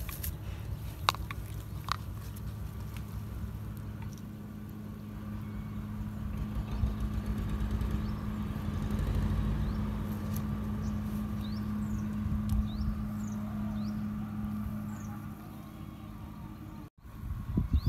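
Steady low drone of a distant motor under a low rumble, with a few light clicks in the first couple of seconds and faint short chirps about midway.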